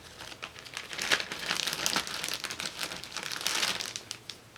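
Sticker sheets and planner paper rustling and crinkling as they are handled, a continuous run of small crackles.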